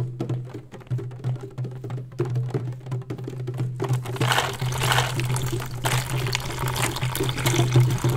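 Music with a steady low drone and light percussive ticks; from about four seconds in, the sound of running water joins it and carries on, matching the paper stream on screen.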